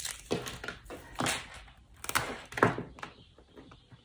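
Hands working at the tightly sealed wrapping of a small package to get it open: four short scraping, rustling strokes with quieter handling noise between them.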